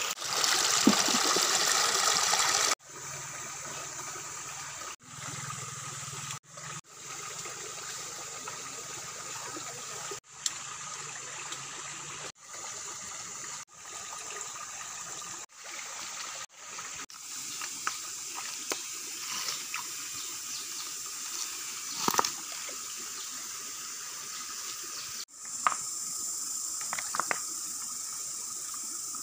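Stream water running over rocks: loud and close for the first few seconds, then a quieter steady rush that drops out briefly several times. A few sharp ticks stand out over the water in the second half.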